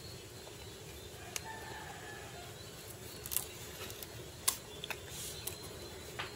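Plastic toy train track pieces clicking and tapping against a hard tile floor as they are handled and fitted together: a few scattered sharp clicks over a steady low background hum.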